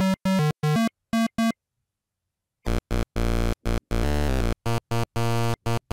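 8-bit-style synthesizer music in short, clipped notes. It breaks off about a second and a half in and starts again about a second later with a new phrase that includes a quick run of notes.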